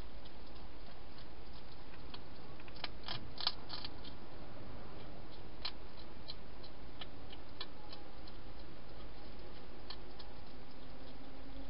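Wild hedgehog eating dry food in a clear plastic feeding station: scattered crunching clicks, with a quick cluster about three seconds in, over a steady background hiss.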